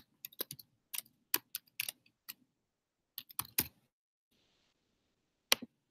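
Typing on a computer keyboard: a run of irregular key clicks, a pause, a short second run, then one last pair of keystrokes near the end.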